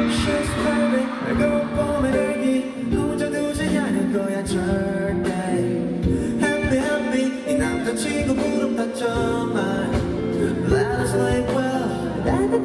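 Live concert performance: a male singer sings into a microphone over instrumental pop backing.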